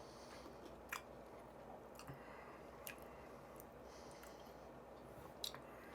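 Faint chewing of chicken wings, with four soft, short clicks spread through otherwise near silence.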